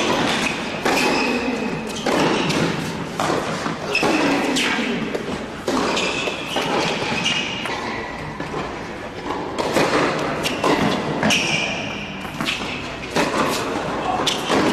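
Indoor tennis rallies on a hard court: repeated racket strikes and ball bounces, with short high shoe squeaks as the players move, echoing in a large hall.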